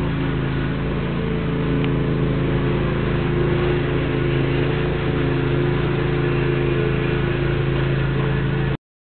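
A machine running steadily: a low, even hum with several overtones, holding the same pitch throughout and stopping suddenly near the end.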